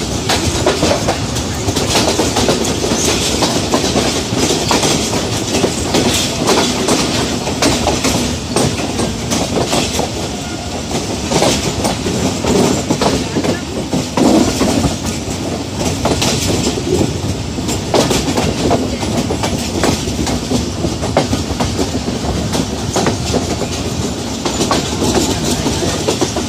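Passenger train running over the track, heard from the moving coach: a steady rumble of wheels on rails with frequent irregular clacks.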